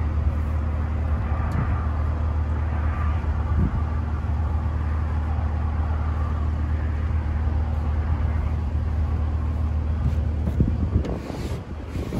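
Truck running with a steady low engine drone, with a few light knocks near the end.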